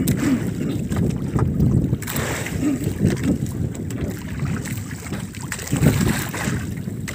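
Wind buffeting the microphone on a boat at sea: an uneven low noise that rises and falls, with a few faint clicks.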